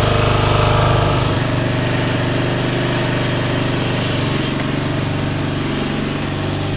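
Ride-on lawn mower engine running steadily as the mower tows a rope, hauling a sunken motorbike out of a canal under load; the engine note shifts about a second in.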